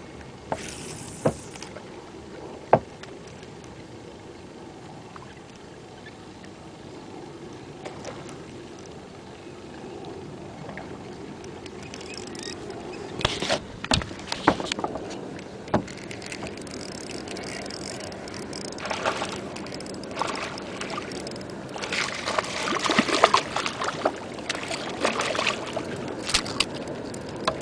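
Water lapping and sloshing against a small boat's hull, heard through a camera lying on the deck, with a few sharp knocks near the start. From about halfway through come louder, irregular splashes and bumps.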